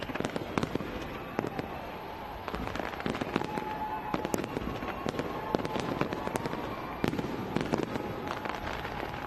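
Fireworks going off: many sharp, irregular bangs and crackles in quick succession.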